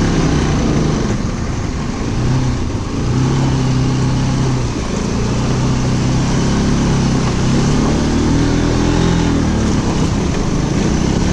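Vehicle engine running and revving, its pitch rising and falling, under a steady rushing noise.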